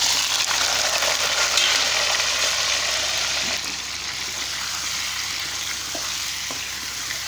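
Raw chicken pieces dropped into hot cooking oil in a karahi, sizzling and frying, the sizzle easing a little after a few seconds as the pieces are stirred with a spatula, with a few faint knocks of the spatula near the end.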